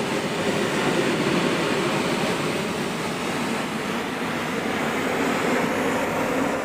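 Pressure washer running steadily, its jet spraying a wooden deck, a continuous even noise.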